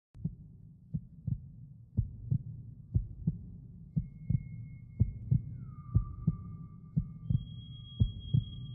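Heartbeat sound effect: a steady double thump about once a second. Thin, high, held tones fade in over it from about four seconds in, one of them sliding down in pitch.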